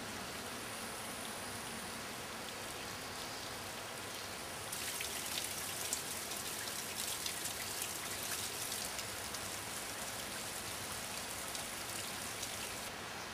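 Water dripping and trickling from a seep in a rock overhang into a small pool, a fine patter of drops. The patter grows louder about five seconds in and drops back near the end.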